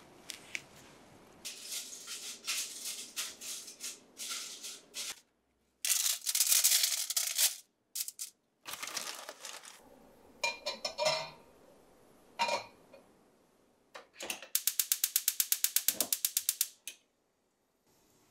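Rustling of parsley sprigs being picked, then light metal clinks as a wire mesh rack is set on a ceramic stovetop smoker. Near the end, a gas hob's igniter clicks rapidly, about ten clicks a second for two seconds.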